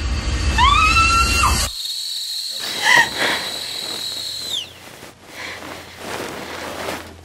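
A woman's high scream rises over a low rumbling drone, and both cut off abruptly about two seconds in. A thin, high ringing tone then holds for about three seconds and slides downward. A short gasp comes about three seconds in as she wakes.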